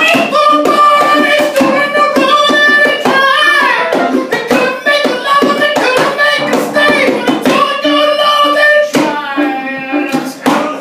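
Live blues song performance: held, wordless vocal notes, some bending in pitch, over a rhythm of sharp hand-percussion hits.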